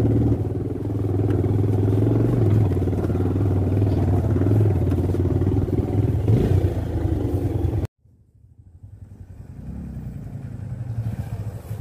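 Single-cylinder motorcycle engine running steadily at low speed, heard close up from the rider's helmet on a rough dirt trail. It cuts off abruptly about eight seconds in, and then another motorcycle engine is heard faintly, growing louder as the bike approaches.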